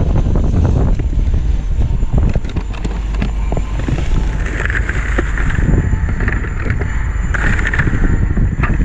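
Wind buffeting the microphone with a steady low rumble, over the small knocks and clatter of items being packed into a plastic tackle box. A plastic bag crinkles, most clearly about five seconds in and again near the end.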